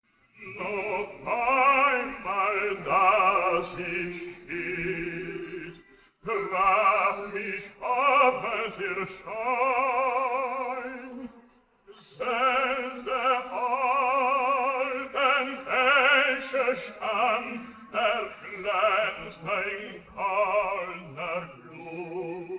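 Operatic tenor singing unaccompanied in German, with a wide vibrato. The voice sings three long phrases, with short breaks about 6 and 12 seconds in.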